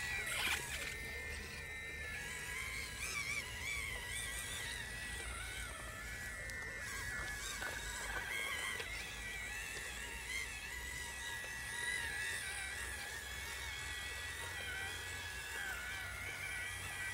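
Whine of the 1:18 RocHobby Unimog RC truck's small electric motor and metal gears as it crawls through wet grass, its pitch wavering as the throttle and load change. A sharp click about half a second in.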